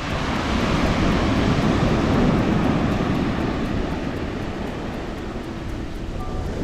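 Sea waves breaking and washing up on the beach, with wind buffeting the microphone; the surf swells over the first couple of seconds and then slowly eases.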